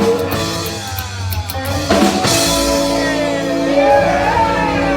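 Rockabilly band playing an instrumental passage on electric guitar and drum kit, with a cymbal crash about two seconds in, then guitar notes bending up and down.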